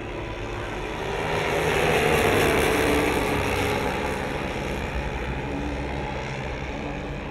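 The four glow-plug piston engines of a 1:10 scale RC Lockheed Super Constellation running together in flight. The sound grows louder to a peak about two seconds in as the model passes, then fades as it flies away.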